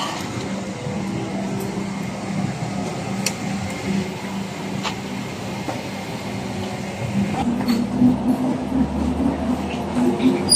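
Steady hum of a parked airliner's cabin ventilation as passengers file out, with a few scattered clicks and knocks. About eight seconds in, a deeper steady hum joins.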